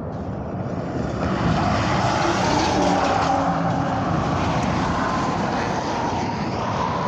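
Heavy truck passing at highway speed: engine drone and tyre noise, swelling about a second in and holding steady. No horn sounds.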